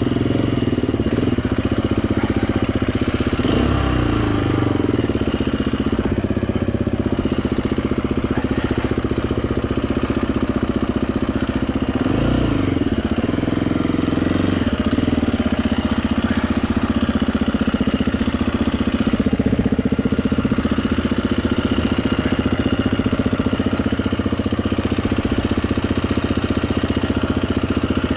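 Dirt bike engine running under way, its revs rising and falling a few times as the throttle is worked.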